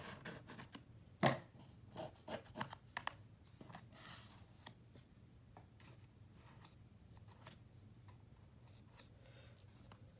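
Pencil tracing around a paper base: short scratchy strokes and light taps and rustles of the paper being handled, the loudest tap about a second in, growing sparse and faint in the second half.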